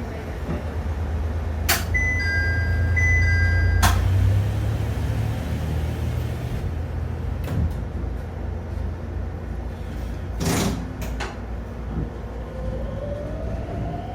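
HK100 electric railcar running with a steady low rumble, a short electronic chime of a few clear tones set between two clicks about two seconds in, and a couple of sharp knocks around ten seconds in. Near the end a motor whine rises steadily in pitch as the train gathers speed.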